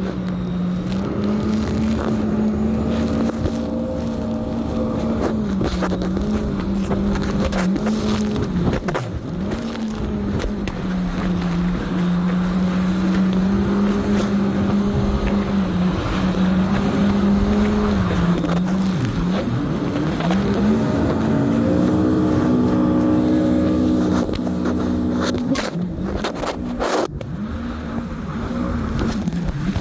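Jet ski engine running under way, its pitch stepping up and down every few seconds as the throttle changes, over a steady rush of wind and water noise. A few sharp knocks come near the end.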